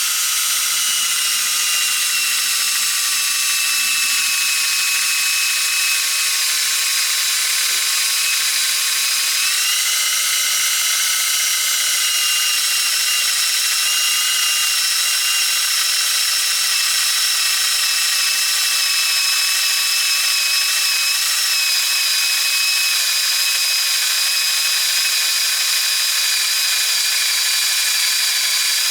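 Cordless drill driver running steadily under load, a #8 bit cutting into 1/4-inch steel plate. It makes a steady high whine that rises slightly in pitch about ten seconds in; the bit cuts slowly, not an aggressive one.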